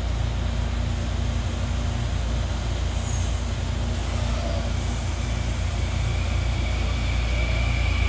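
Série 7000 electric multiple unit pulling out of a station with a steady low rumble. A brief hiss comes about three seconds in. A high traction-motor whine starts about six seconds in and grows louder as the train picks up speed, the growl the uploader calls 'roncando'.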